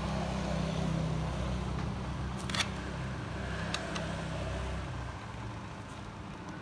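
Screws being fitted into a laptop HDD caddy: two light, sharp clicks of small screws and a screwdriver on the caddy, over a steady low hum that fades near the end.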